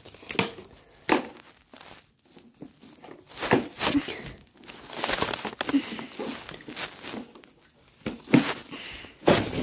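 Close rustling and crinkling in irregular bursts, with a few sharp knocks, from things being handled right against the microphone.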